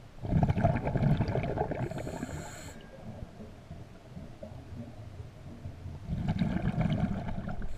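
Scuba diver breathing underwater through a regulator: a loud burst of exhaled bubbles with a brief hiss a little after the start, and another near the end.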